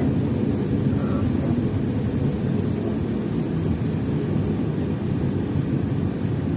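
Steady low rumble of a car driving on a wet road, heard from inside the cabin: engine and tyre noise on wet pavement.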